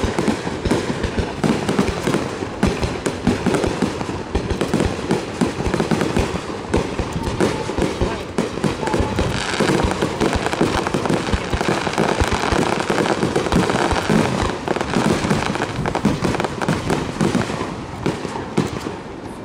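Rapid barrage of aerial firework shells bursting, a dense, continuous stream of bangs and crackles that eases off near the end.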